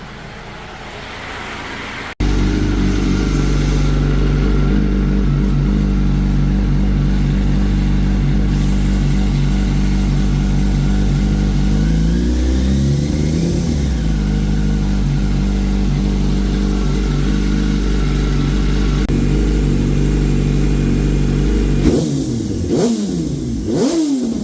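Car engine idling steadily, revved up and back down once about halfway through, then blipped in several quick revs near the end.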